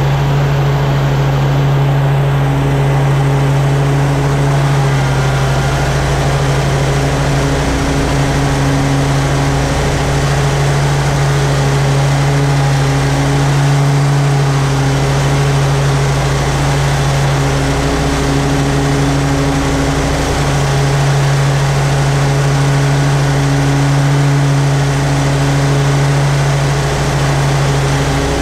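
Toro Z-Master 4000 zero-turn mower running loud and steady while cutting grass, its engine holding a constant drone with small dips in pitch now and then.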